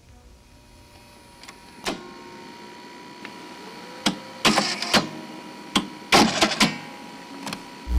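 Irregular mechanical clicks and clunks, about a dozen, bunched mostly in the second half, over a faint steady high tone.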